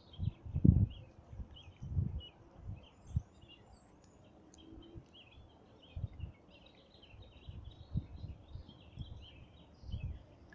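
Small birds chirping and twittering continuously, many short high calls overlapping. Several brief low thumps on the microphone are the loudest sounds.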